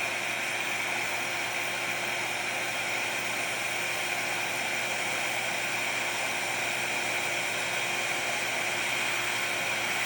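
RevAir reverse-air hair dryer running steadily on setting 3, a constant airy whir with a pronounced high hiss, as it sucks a section of wet hair into its wand tube and dries it.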